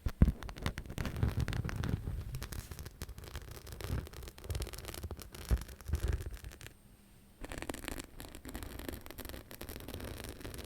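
Rapid close-up scratching and rubbing on an object's surface, dense and irregular, with a brief pause about seven seconds in.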